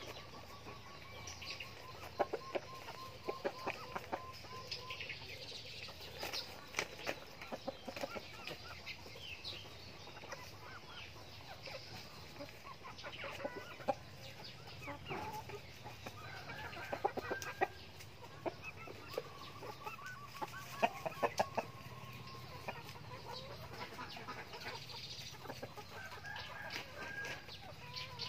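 Backyard chickens clucking softly as they forage, with many short sharp scratching and pecking sounds in dry leaf litter.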